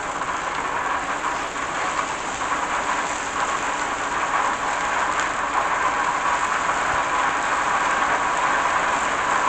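Thick-cut maple bacon sizzling and spattering on a hot Blackstone flat-top griddle: a steady, dense crackle.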